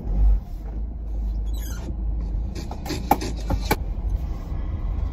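Van engine running just after being started, a steady low rumble heard from inside the cab, with a brief louder surge at the very start. A few short clicks and knocks come between about one and a half and four seconds in.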